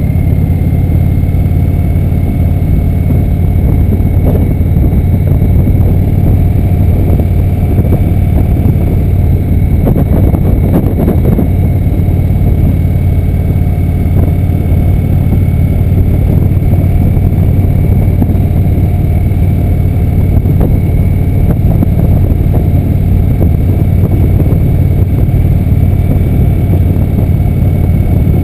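Indian motorcycle's V-twin engine running steadily while cruising at low speed, a strong low hum, with a short cluster of knocks about ten seconds in.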